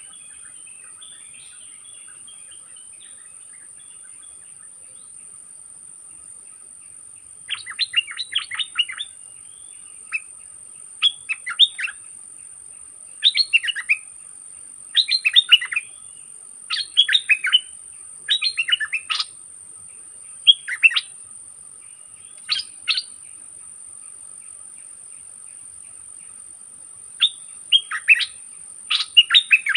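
A bulbul singing in short bubbling phrases, repeated about every second and a half, with quiet stretches early on and in the last third. A steady high insect whine runs underneath.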